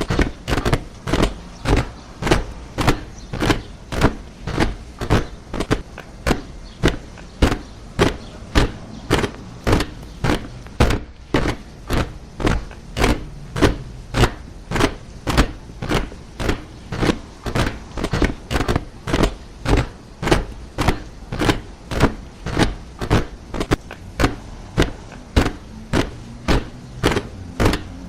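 Soldiers marching in step, boots striking the ground together in a steady rhythm of about two steps a second.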